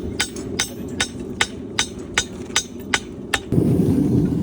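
Hand hammer striking hot axe steel on an anvil, sharp ringing blows in an even rhythm of about two and a half a second, over a steady low rushing noise. The blows stop about three and a half seconds in, and the rushing noise grows louder.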